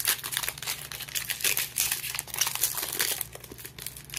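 Foil wrapper of a Panini baseball card pack being torn open and crinkled by hand: a dense, irregular run of crackles.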